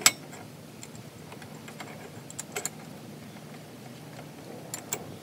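A few sharp clicks and knocks of metal parts: the foot being fitted onto a trailer's electric tongue jack. A loud one comes right at the start, then a pair about two and a half seconds in and another pair near the end.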